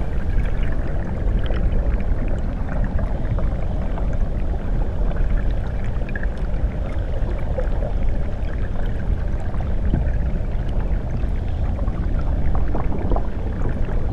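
Steady rushing and bubbling of stream water, picked up by a microphone at or just under the surface, with small pops and ticks throughout.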